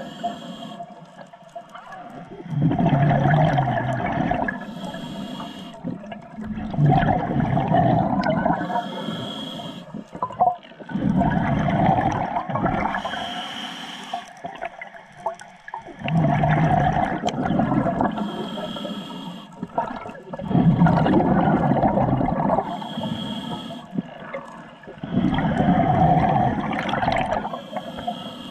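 Scuba diver breathing through a regulator underwater. Each breath is a short hiss as air is drawn in, then a loud gush of exhaled bubbles, about six breaths four to five seconds apart.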